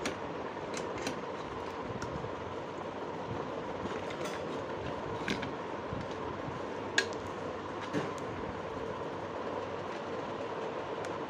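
Scattered light metal clicks and clinks as a cricket helmet's steel grille and its side bracket and nut are handled and fitted, the sharpest about seven seconds in. Under them is a steady background hum.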